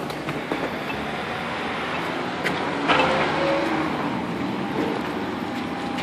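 City bus running at the curb, a steady engine and street noise, with a short, slightly rising tone and a step up in loudness about three seconds in.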